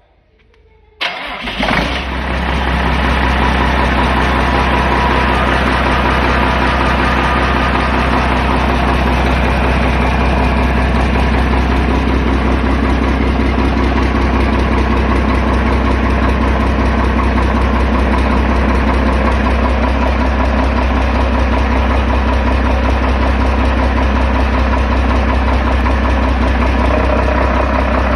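Yanmar 6KHA-ET six-cylinder marine diesel starting about a second in, catching almost at once, then running steadily at idle.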